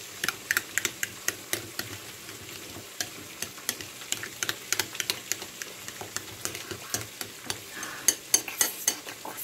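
A metal fork stirring thick mayonnaise sauce in a ceramic bowl, its tines clicking irregularly against the bowl a few times a second, with a quicker run of louder clicks near the end.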